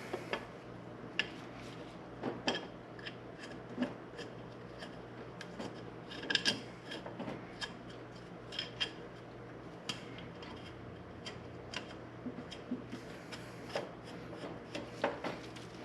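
Scattered light clicks, taps and rubbing from metal fittings and hand tools being handled while a -8 fuel line is fitted to the passenger-side fuel rail.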